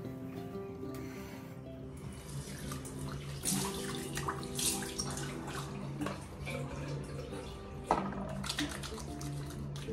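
Tap water running into a bathroom sink, with irregular splashing as a face is washed, starting about two seconds in, over background music.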